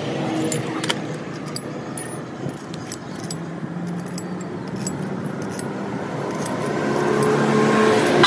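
Light metallic clinks of steel bolts being picked up and set into the holes of a truck differential case's flange. A vehicle engine runs in the background and grows louder toward the end.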